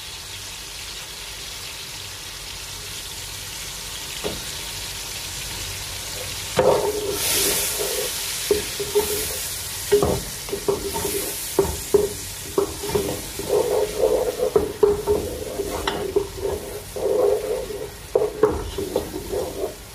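Mushrooms and oil sizzling steadily in a nonstick pot. About six and a half seconds in, tomato paste is stirred in with a wooden spatula: the sizzle gets louder, with repeated scraping and knocking of the spatula against the pot.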